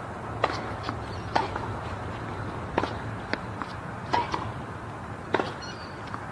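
Sharp pops of a tennis ball, bounced and struck by rackets during a point on a hard court, about nine in all, over a steady low outdoor hum.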